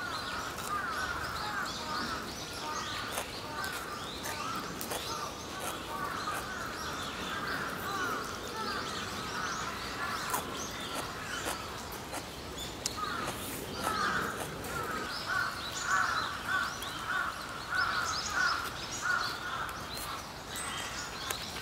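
Wild birds calling and chirping without pause, with a louder run of repeated calls in the second half.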